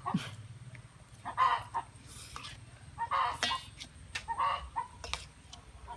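A person slurping instant noodles, sucking strands into the mouth in about five short slurps roughly a second apart.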